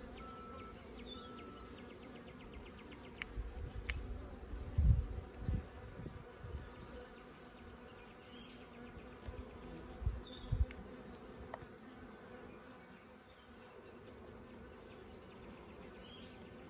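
Honeybees from an opened nuc buzzing steadily around the frames as they are handled. A few low bumps stand out between about three and six seconds in, and twice more near ten seconds.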